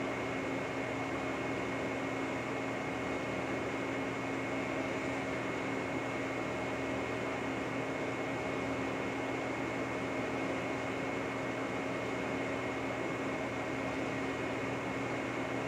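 Lucas model 41 boring mill running steadily while boring the pin holes: an even mechanical hum and hiss with several constant whines, one of them high-pitched.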